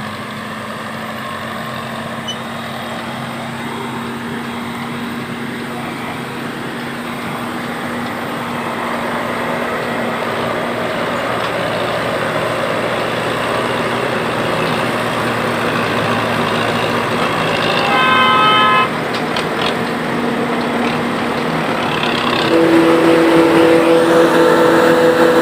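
Claas Jaguar 850 forage harvester running steadily as it chops crop, growing louder as it comes closer. A short horn toot sounds about three-quarters of the way through, and the engine note gets stronger near the end.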